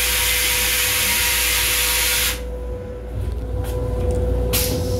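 M7 railcar's stainless-steel toilet flushing: a loud, steady hiss that cuts off suddenly about two seconds in, then a short hiss near the end.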